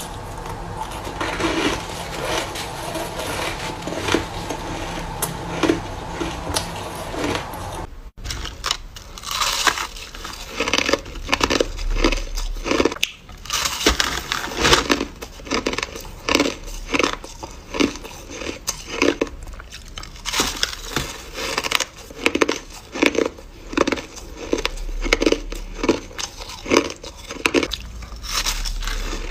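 A person biting and chewing crushed ice close to the microphone, each bite a crisp crunch. In the second half the bites come in a steady run, about two a second.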